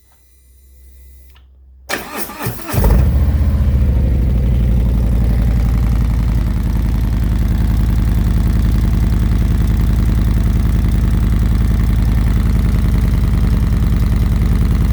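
Harley-Davidson Milwaukee-Eight V-twin engine with slip-on mufflers, the baffles taped in the middle, cranked on the starter about two seconds in; it catches almost at once and settles into a steady, loud idle. A faint low hum precedes the cranking.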